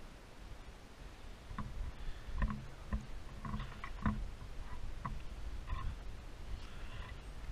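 Outdoor wind rumbling on the microphone, with a run of soft knocks and clicks from about one and a half to six seconds in.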